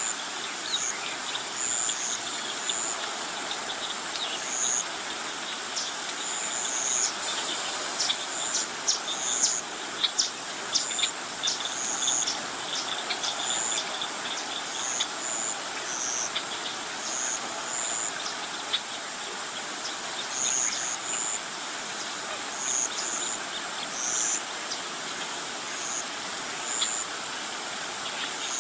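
Outdoor chorus of birds and insects: short high chirps repeat about once a second over a steady hiss, with a cluster of sharper clicking chirps about a third of the way in.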